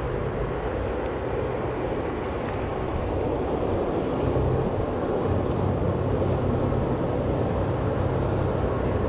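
Steady rumbling background noise with a low hum underneath and no distinct events.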